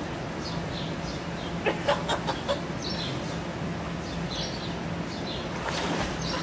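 Small birds chirping again and again. Pool water splashes and sloshes about two seconds in and again near the end, over a steady low hum.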